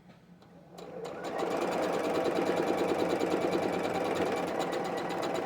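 Sewing machine stitching quilt pieces: it starts up about a second in, then runs at a steady fast speed with a rapid, even needle rhythm.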